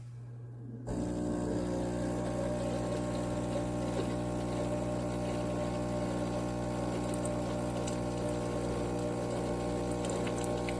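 Cuisinart SS-10P1 single-serve coffee maker's pump kicking in about a second in and running steadily with a humming drone as it pumps water to brew.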